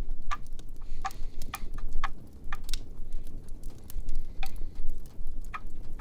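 Fireplace fire crackling: irregular sharp pops and snaps, a few a second, over a steady low rumble.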